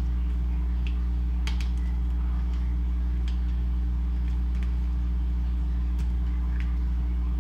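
A steady low hum runs throughout. Over it come a few faint soft ticks and rubbing sounds as hands massage seasoning into a raw basa fish fillet on a plastic cutting board.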